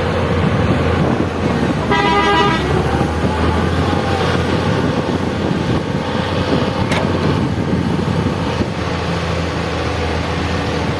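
Heavy machinery running, with a steady engine rumble and clatter throughout. About two seconds in comes a brief pitched toot, and near seven seconds there is a single sharp click.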